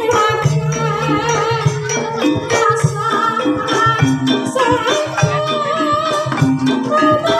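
Live Javanese gamelan music accompanying an ebeg horse-trance dance: struck percussion and drums keep a steady beat, with repeated low notes under a wavering high melody line.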